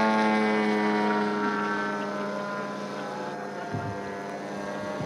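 Engine and propeller of a large-scale radio-controlled aerobatic plane running, a steady buzzing note that sinks slightly in pitch and fades as the plane climbs away.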